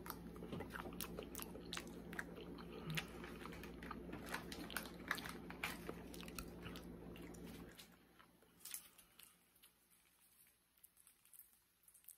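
A person chewing a chocolate-covered cherry close to the microphone: many small clicks, dense for the first eight seconds or so, then sparser. A steady low hum in the room cuts off about eight seconds in.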